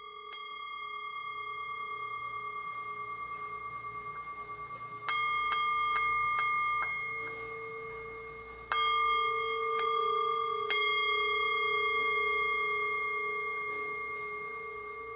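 Music of struck metal bowls or bells: long ringing tones that waver as they hang on. A quick run of light strikes about five seconds in, and two more strikes near nine and eleven seconds, renew the ringing.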